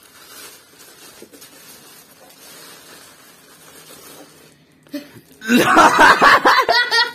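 Faint rustling of tissue paper and plastic wrapping being pulled from a cardboard box, then a boy laughing loudly from about five seconds in.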